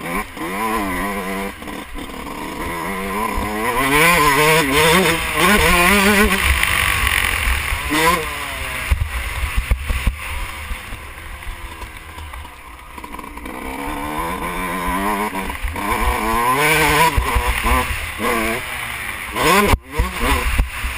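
Yamaha YZ125 two-stroke motocross bike's engine revving up and dropping back over and over as it is ridden around a dirt track, with wind rushing on the microphone.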